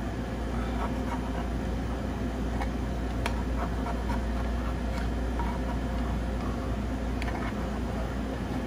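Steady background hum, like kitchen air handling, with a few light clicks and scrapes against a metal muffin tin as baked egg muffin cups are worked loose and lifted out.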